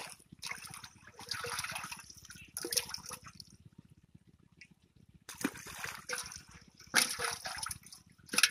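Water splashing and sloshing in a metal pot of live fish as hands move through it, in a series of short bursts.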